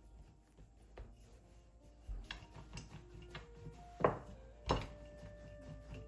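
Dishes and kitchen utensils knocking and clinking a few times, the two loudest knocks about four and four and a half seconds in, over soft background music.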